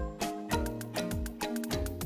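Background music with a steady beat: a low drum about twice a second under a plucked melody.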